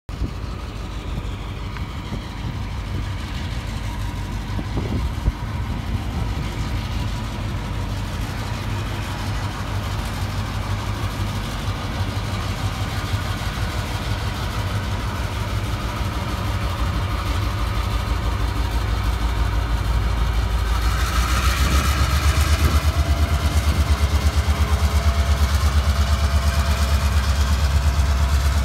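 Norfolk Southern diesel locomotive's engine running as it hauls a train past, a low rumble that grows louder as it nears and pulses evenly in the last several seconds. A brief rush of higher-pitched noise comes about two-thirds of the way in.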